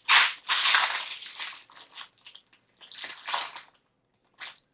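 Rustling and crinkling of earring packaging being handled, in several irregular bursts with short gaps between them.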